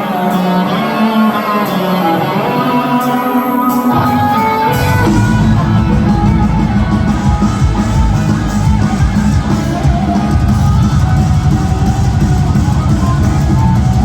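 Live instrumental rock: a lead electric guitar plays a melody with bent, vibrato-laden notes over a held bass note, then the full band with drums comes in about five seconds in and plays on loudly.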